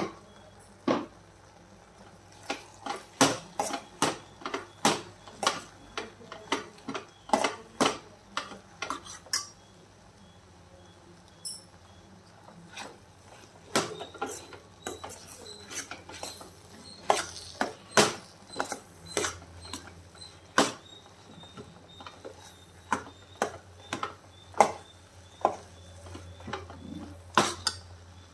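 Steel ladle stirring spice powders into a thick mixture of vegetables in a metal pot, knocking and scraping against the pot's sides in sharp, irregular clinks. There is a quieter spell about ten seconds in before the clinking picks up again.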